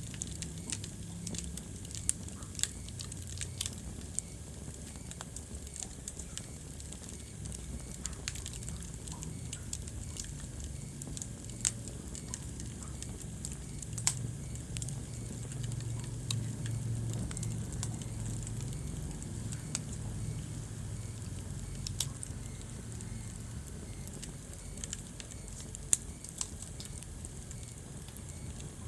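Wood fire burning in a fireplace: a steady low rumble of the flames with frequent irregular crackles and pops, a few sharp louder pops scattered through.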